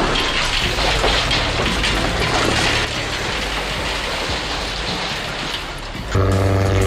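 Heavy machinery at work: a loud, rough mechanical clatter and rumble. About six seconds in it gives way abruptly to a steady, even-pitched engine drone.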